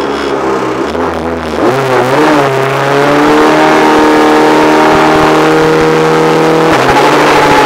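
Renault Clio R3 rally car's four-cylinder engine heard from onboard, revving up about two seconds in and held at high revs in one gear. Near the end the pitch drops at an upshift, then starts climbing again.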